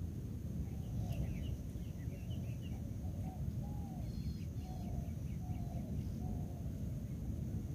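Partridge (teetar) calling: a string of short rising-and-falling notes, about one a second, with a few faint higher chirps, over a steady low rumble.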